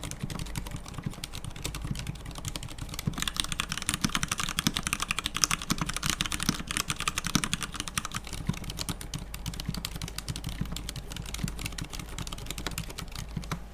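Typing on a Hansung TFG Art wireless mechanical keyboard with stock, unlubricated Cherry MX RGB switches: a fast, continuous run of muted key clacks with almost no case ping and no other noticeable noise. The keystrokes are brighter and louder from about 3 to 8 seconds in.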